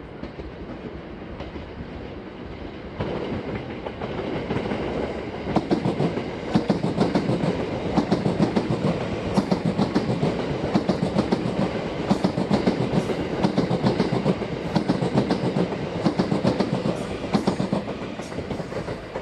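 Thunderbird limited express electric train passing, building up about three seconds in, then a long, fast run of clattering wheel clacks over rail joints and points that tails off near the end.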